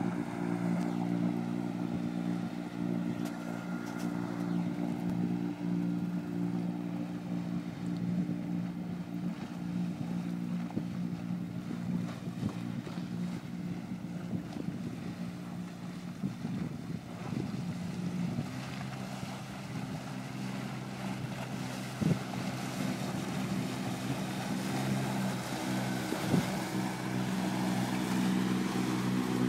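Boat engine running at a steady pitch, with wind on the microphone and the wash of choppy water; it grows somewhat louder near the end.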